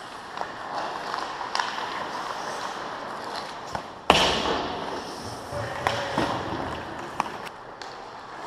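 Ice hockey play in an indoor rink: scattered clicks and taps of sticks and skates on the ice. About four seconds in comes one sharp, loud bang with a rumbling echo, an impact against the boards close by.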